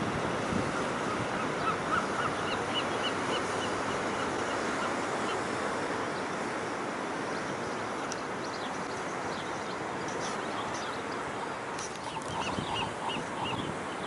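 Steady wash of ocean surf and wind, with gulls calling in two quick series of short repeated notes, one a few seconds in and another near the end.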